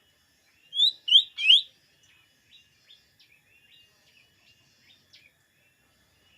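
Lesser green leafbird (cucak ijo mini, or cucak daun) singing. Three loud rising whistled notes come about a second in, followed by a run of softer short chirps.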